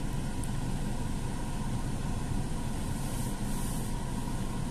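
Car engine idling steadily, heard from inside the cabin; the car is not moving because the clutch has not yet reached its biting point.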